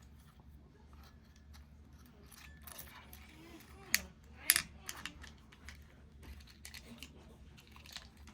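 Small metal clicks and clinks from the parts of a Master Lock padlock being handled and worked on, with two sharp, louder clicks about four and four and a half seconds in.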